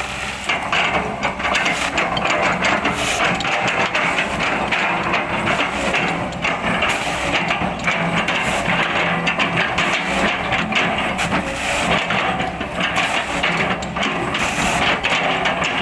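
Kobelco excavator at work: its diesel engine running under load amid continuous crunching and cracking as an oil palm trunk is chipped apart.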